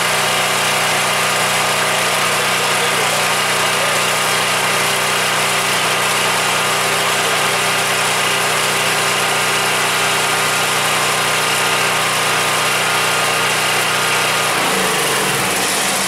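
Champion 7000-watt portable generator's gasoline engine running steadily after its plugged carburetor jet was cleaned out. Near the end the engine note drops as it starts to wind down.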